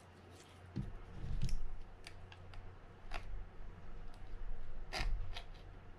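Shimano Baitrunner 12000D anti-reverse lever being twisted back and forth with needle-nose pliers, giving scattered metallic clicks and scraping. The grating comes from salt corrosion built up around the seized lever shaft.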